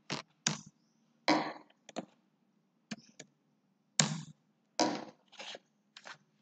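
Keystrokes on a computer keyboard as a web address is typed in: about ten separate sharp clacks at uneven spacing, a few of them much louder than the rest.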